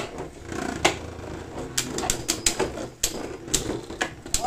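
Beyblade Burst tops, Saber Valkyrie among them, spinning against each other in a battle: a steady low whir broken by a series of sharp clicks as they collide, several in quick succession near the middle.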